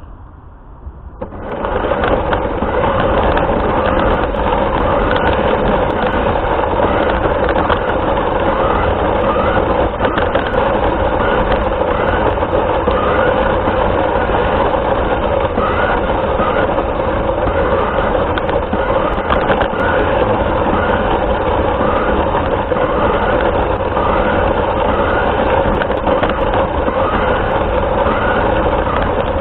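Radio-controlled car running, picked up by a camera mounted on it: a loud, steady noise that starts suddenly about a second and a half in and holds without letting up.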